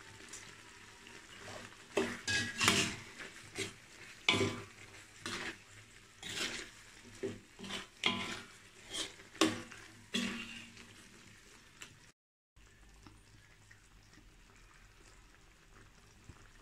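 Metal ladle stirring fried soya nuggets into thick sambal in a metal wok, scraping and knocking against the pan in irregular strokes over a faint sizzle. The stirring stops about ten seconds in, leaving only the low sizzle of the sauce.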